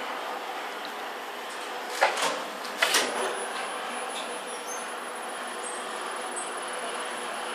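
Hyundai Luxen LXVF1 gearless elevator traction machine room: a steady machinery hum with a few faint steady tones, broken by sharp mechanical clacks about two and three seconds in, the second the loudest. A faint thin high whine sets in just after the second clack.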